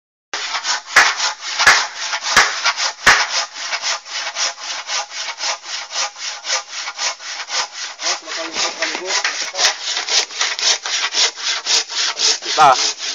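Handsaw cutting through a wooden board in rapid, even strokes, about four a second. Four sharp knocks come in the first three seconds.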